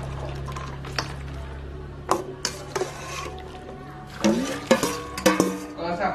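A metal bowl clinks a few times against a plastic colander. From about four seconds in, peanuts and their salty soaking water are poured through the colander to drain, splashing and rattling louder. A steady low hum runs under the first part and stops when the pouring begins.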